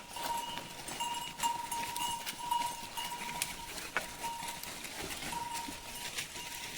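Goat herd moving through dry forest scrub: scattered clicks and rustles of hooves and brush, over a steady high ringing tone that breaks off a few times.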